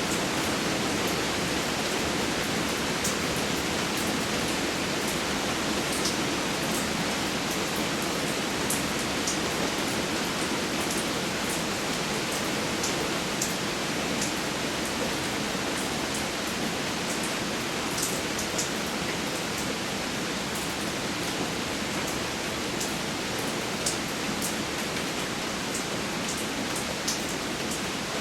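Steady rain falling, an even hiss with scattered individual drops ticking on nearby surfaces.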